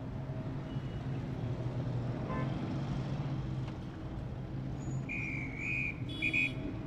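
Street ambience: a steady low engine hum of traffic, with a brief high, wavering whistle-like tone about five seconds in.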